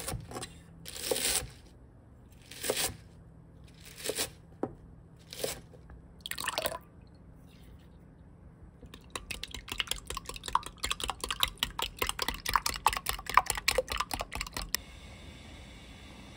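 A chef's knife slicing through a bunch of garlic chives on a cutting mat, about six separate crunchy strokes. Then raw eggs beaten briskly in a glass measuring cup, a quick run of sharp clicks against the glass for about five seconds, which stops suddenly and leaves a faint steady hum.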